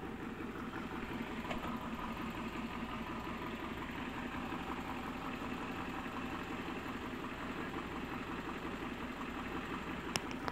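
1997 Daihatsu Espass engine idling steadily, heard close up through the open engine cover under the front seat; it runs evenly and is judged in good order ("mesin oke"). A sharp click near the end.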